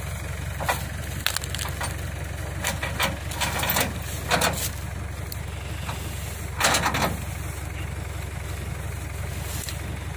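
A truck engine idling steadily, with dry sugarcane leaves crackling and crunching in several short bursts as they are stepped and knelt on, the loudest burst about two-thirds of the way through.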